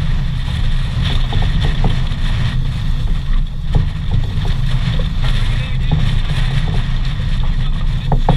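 Wind buffeting the camera's microphone in a steady, heavy rumble, over the rush and hiss of water streaming past the hull of a heeled sailboat.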